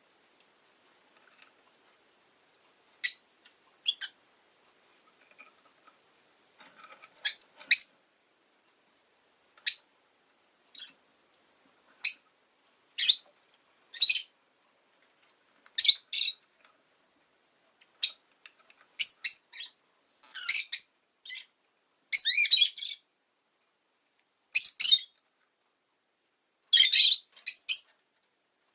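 Rosy-faced lovebird chirping in short, shrill calls with pauses between them, the calls coming more often and louder in the second half.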